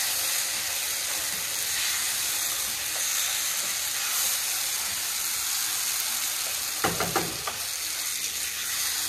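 Beef stew in tomato sauce sizzling steadily in a nonstick frying pan while a wooden spatula stirs it through the sauce. A brief clatter of knocks comes about seven seconds in.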